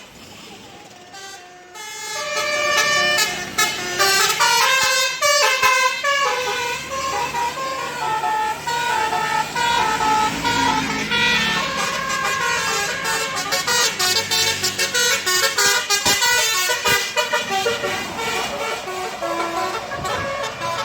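Bus 'telolet' multi-tone musical horn playing a rapid run of shifting notes, starting about two seconds in and going on to the end.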